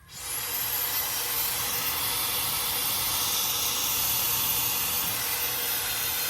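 High-speed hair dryer with a concentrator nozzle switching on: its motor spins up with a high whine that rises in the first half second, then runs with a steady rush of air.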